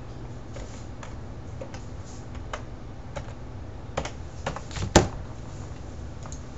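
Computer keyboard keys tapped one at a time, entering a PIN and SecurID code, with one sharper click about five seconds in.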